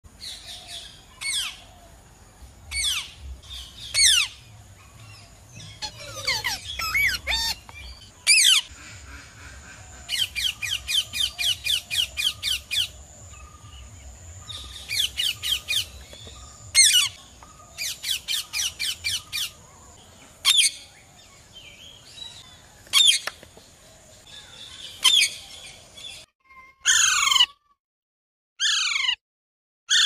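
Indian ringneck parakeet calling: sharp, falling squawks one or two at a time, with a fast chattering run of calls about ten seconds in and another shorter run a little later. A faint steady high tone runs behind the calls, and near the end the calls come in short clipped bursts with dead silence between them.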